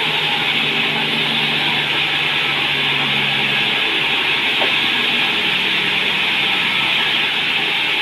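Large log band saw at a sawmill running steadily with a loud, even whir. A lower hum underneath fades out about halfway through.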